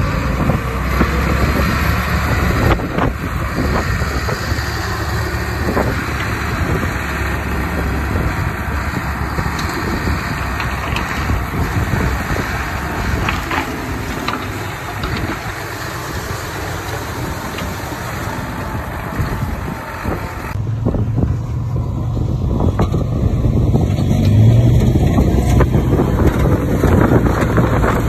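Diesel earthmoving machinery working, its engine running under load with knocks and clatter of soil and stones. About two-thirds of the way in the sound changes abruptly to a deeper, louder engine drone with less hiss.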